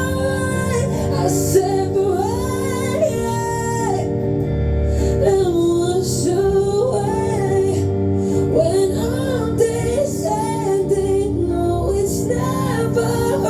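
Live acoustic music: a woman singing a slow melody over acoustic guitar accompaniment.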